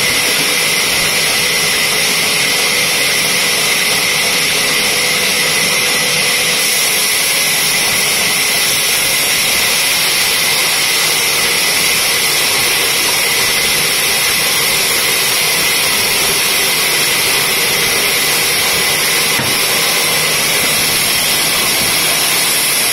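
Horizontal band sawmill running, its blade cutting through a log on the carriage: a loud, steady, high hiss with no break.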